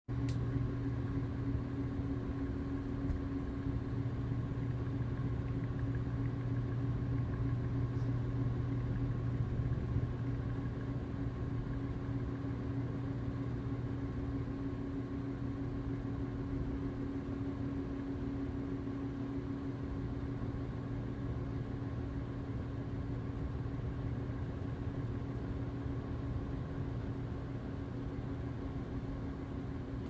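Ceiling fan running steadily: an even motor hum with a low drone and a higher steady tone, over a soft rush of air. A faint click at the very start.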